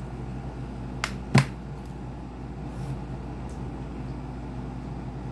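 Two sharp knocks about a third of a second apart, the second louder, over a steady low hum.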